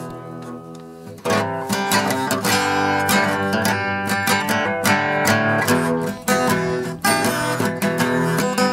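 Background music of strummed acoustic guitar. It drops low over the first second, then comes back in full about a second in.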